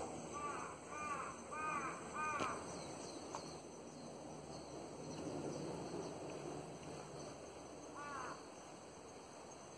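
A crow cawing four times in quick succession, then once more near the end, heard faintly over a steady background hiss.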